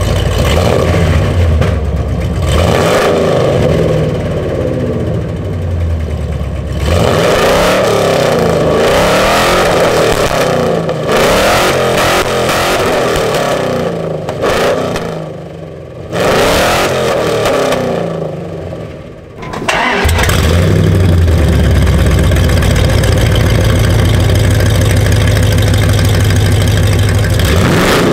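Second-generation Dodge Ram 1500 V8 idling through its old dual exhaust (H-pipe and two Magnaflow mufflers) and being revved: a short rev about two seconds in, a longer run of revs, another rev, then a steady idle for the last several seconds. The old headers are worn; the owner thinks they have a couple of big holes and so exhaust leaks.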